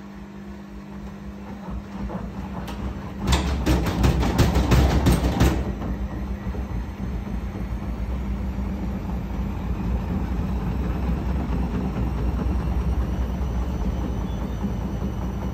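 Beko WRE6512BWW front-loading washing machine on a spin burst during its Down Wear programme. About three seconds in, the machine jumps as the drum speeds up, knocking about five times a second for two seconds. It then settles into a steady low spinning rumble.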